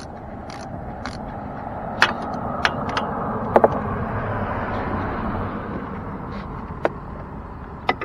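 A car passing by, swelling to its loudest about four seconds in and then fading away. Over it come a handful of sharp metallic clicks and knocks from a ratchet wrench worked on the engine top, one of them a quick double.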